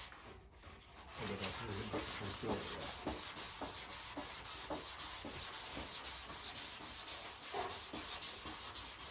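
Hand sanding of primer on a car body panel with sandpaper on a flexible sanding block: quick, even back-and-forth rasping strokes that start about a second in.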